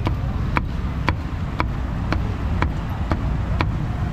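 Cleaver chopping roast pork on a wooden cutting board with steady, even strokes about two a second, over a constant low rumble.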